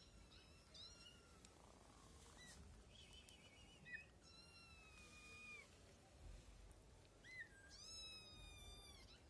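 Kitten meowing in high, thin calls, about six times, the longest one near the end.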